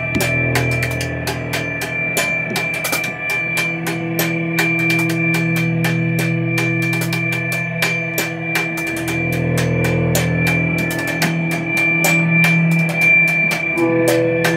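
Instrumental improvised jam: a drum kit played with rapid, dense cymbal strokes over sustained low bass notes and a steady high held tone.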